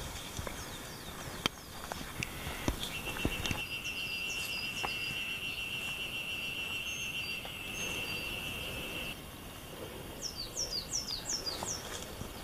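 Mountain forest ambience: a steady, buzzing insect trill for about six seconds, with small birds chirping over it, ending in a quick run of falling chirps near the end. A few faint knocks are scattered through it.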